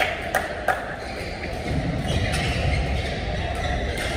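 Sports hall ambience during a badminton match: a few sharp knocks in quick succession in the first second, then a steady low rumble of the hall with faint voices.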